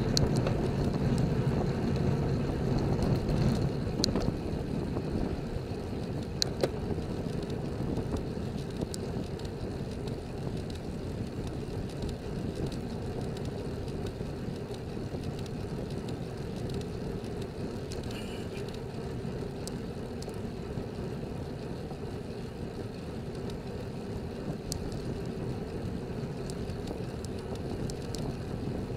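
Wind rushing over a bike-mounted camera's microphone, mixed with tyre noise from a road bicycle rolling at about 25–30 km/h. The rush is louder in the first few seconds and settles as the bike slows, with a couple of sharp clicks a few seconds in.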